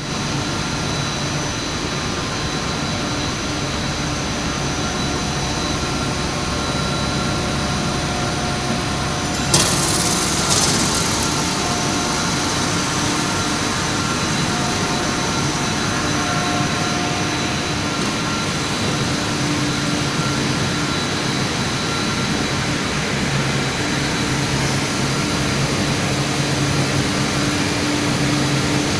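Textile waste recycling line running: a steady machinery drone from the fibre-processing machines and their centrifugal blower fans, with steady hums under a continuous hiss. About ten seconds in a sudden louder rush of hiss lasts a second or so.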